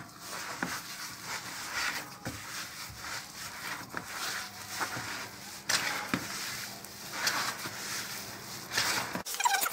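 Gloved hands kneading a soft, oily flour-and-yogurt dough in a plastic bowl: irregular rubbing and pressing strokes with light knocks against the bowl, as the flour is worked into the dough.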